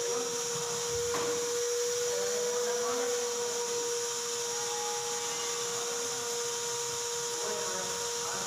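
A workshop machine whines steadily at one pitch under a high hiss, with a few light metallic knocks from work on the car's engine bay.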